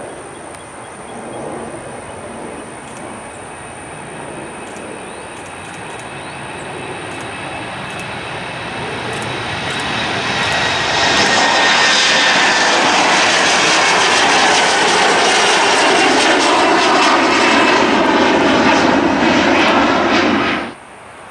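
Embraer E175 regional jet's twin GE CF34 turbofans at takeoff power, the jet noise building steadily as the aircraft rolls, lifts off and climbs away, with a high whine over the noise. It is loudest over the second half and cuts off abruptly near the end.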